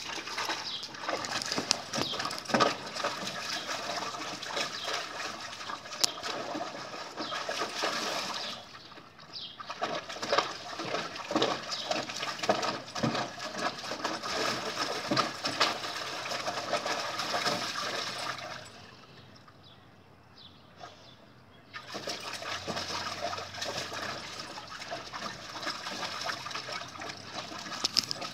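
Pit bull puppy splashing and pawing at shallow water in a plastic kiddie pool, in spells of choppy splashing with a quieter pause of a few seconds about two-thirds of the way through.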